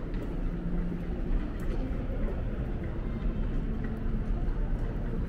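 Steady background din of a busy railway station: a low rumble with faint scattered clicks through it.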